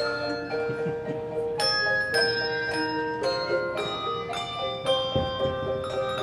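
Handbell choir playing a tune: chords of handbells struck about every half second, each note ringing on under the next.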